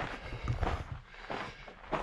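A few footsteps at a walking pace, about four short scuffs evenly spaced.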